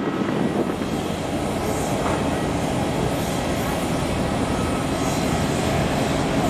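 Boeing 777-300ER's GE90 jet engines running steadily as the airliner taxis after landing: an even rumble with a faint high whine.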